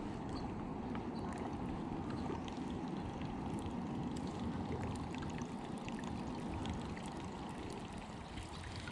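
Steady wash of moving river water around a kayak, with small scattered splashy ticks.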